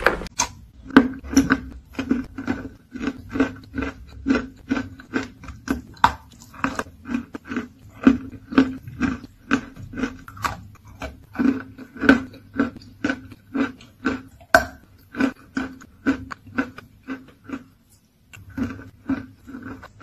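Close-miked crunching of chalk coated in clay paste being bitten and chewed, a steady run of crisp crunches about two a second, with a brief pause near the end.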